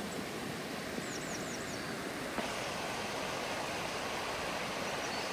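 Fast-flowing shallow river rushing over rocks, a steady, even noise. A small bird calls four short falling notes about a second in.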